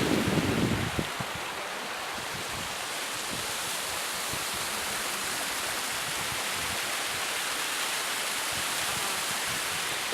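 Rushing water: a steady, even hiss that sets in after a few low thumps in the first second.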